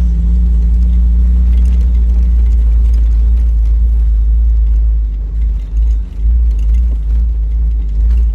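Jeep driving up a rough dirt trail, heard from a dash camera inside the cab: a steady low engine and drivetrain rumble. Past the middle the rumble turns uneven, with jolts and small rattles.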